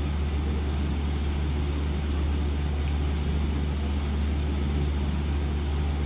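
Diesel engine of a Hydra mobile crane running with a steady low drone while the crane holds a generator on its lifting strap.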